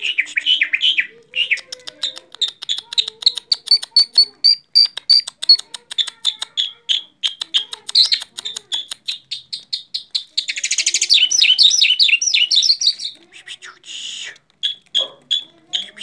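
Caged Iranian Mashhadi jal bird singing: a fast, steady run of short, high chirps, several a second. It breaks into a dense, buzzy trill about ten seconds in, then goes back to scattered chirps.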